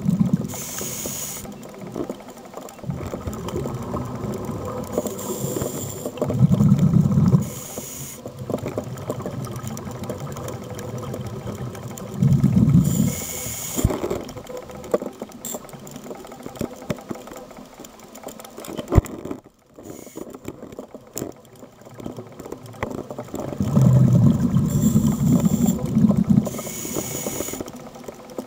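Scuba diver breathing through a regulator underwater: about four breaths, each a hiss of inhalation and a low rumble of exhaled bubbles. A few sharp clicks fall in between.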